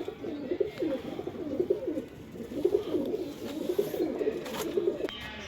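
Domestic pigeons cooing: a run of low, rolling coos one after another that stops shortly before the end.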